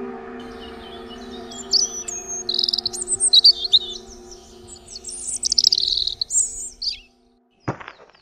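Birds chirping and twittering, many short, high calls and trills, over a steady low hum that fades out about seven seconds in.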